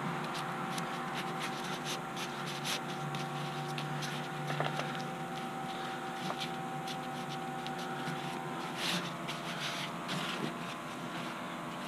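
Scratchy, irregular rubbing and brushing strokes on paint-soaked canvas as it is worked smooth, over a steady background hum.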